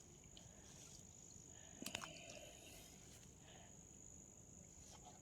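Faint, steady high-pitched insect trill, with a few small clicks about two seconds in.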